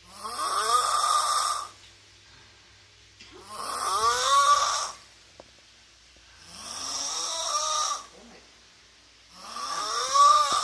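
A sleeping person snoring loudly. Four long snores come about three seconds apart, each gliding up in pitch.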